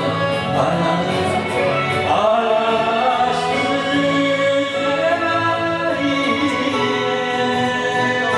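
A man singing a Japanese enka ballad into a microphone over a karaoke backing track, his voice gliding and holding long notes.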